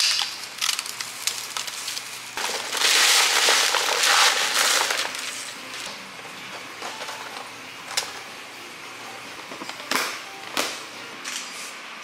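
Pieces of brittle dalgona (honeycomb toffee) crunching and rustling against paper as they are grabbed and handled, loudest for a couple of seconds near the start, then a few sharp clacks as pieces are dropped into a plastic tub with tongs.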